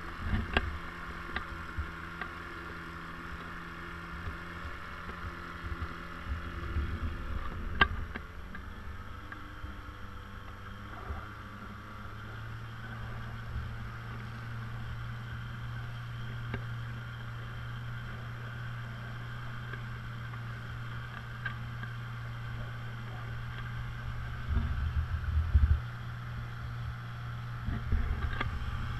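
The dinghy's small outboard motor running at low speed with a steady hum. Its pitch drops about eight to twelve seconds in as it throttles back, then holds lower. A couple of sharp knocks come early on, and low bumps from water slap or wind come near the end.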